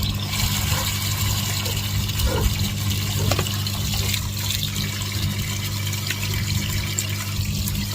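Water running steadily from a tap, over a steady low hum.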